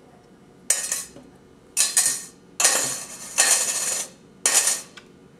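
Small objects (paper clips, bottle caps and pennies) dropped one at a time into an empty metal coffee can, each landing with a metallic clatter and ring. There are about five drops, roughly a second apart, and a couple of them rattle on longer.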